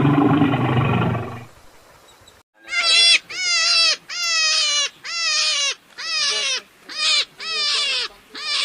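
A deep animal roar tails off, then after a short break an animal calls eight times in quick succession, each call starting high and dropping in pitch.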